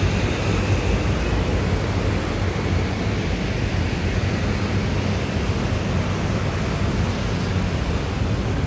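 Steady wind noise rumbling on the phone's microphone, mixed with the even noise of road traffic.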